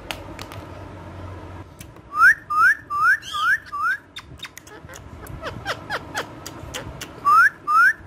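Female Indian ringneck parakeet calling: a quick run of about five short rising whistled chirps about two seconds in, then three more near the end, with faint clicks in between.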